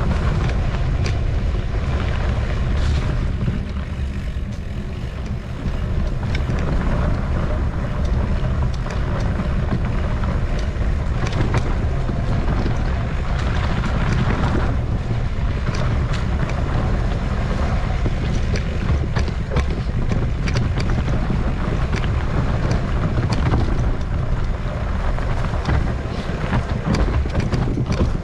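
Wind buffeting the microphone, with a heavy steady rumble, while a mountain bike rides a rough trail with frequent short knocks and rattles from its wheels and frame.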